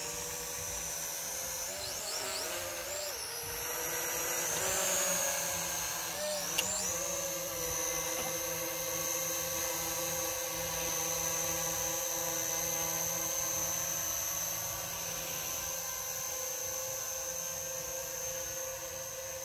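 S19 GPS quadcopter drone hovering, its propellers and motors giving a steady whine. The pitch wavers up and down a few times in the first seven seconds as the motors change speed, then holds steady. There is one short click about six and a half seconds in.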